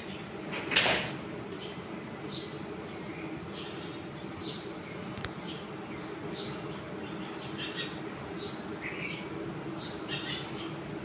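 Steady buzzing hum of a large swarm of disturbed honeybees in flight around their comb, with short high birds' chirps scattered throughout. A brief loud rush of noise comes about a second in, and a single sharp click near the middle.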